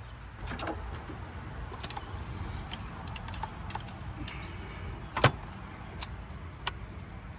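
Small metallic clicks and scrapes of hand tools working a small screw on a car distributor, with one sharp click about five seconds in, over a steady low hum.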